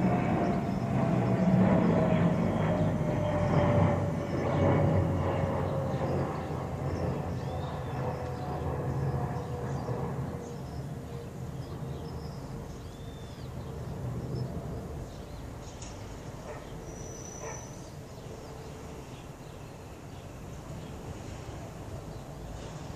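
Airplane passing overhead: its engine whine slowly falls in pitch and its low rumble fades away over the first ten seconds or so.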